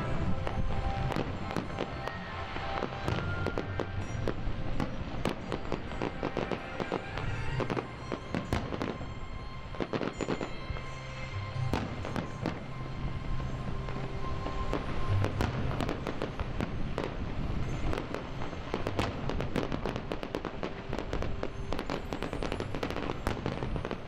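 Fireworks display with aerial shells bursting in rapid, continuous bangs and crackles, and music playing underneath.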